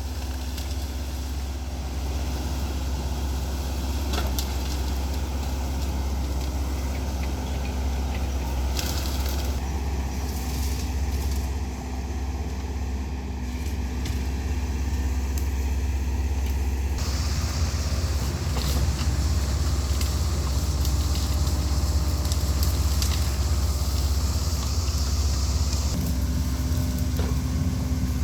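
A Hidromek construction machine's diesel engine running with a steady low drone. The higher-pitched noise over it shifts several times, with a brighter hiss for a stretch past the middle.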